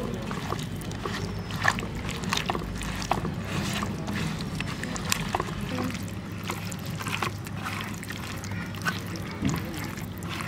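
Hands squishing and kneading wet spice paste into raw stinging catfish on a leaf: a string of irregular small wet squelches and clicks.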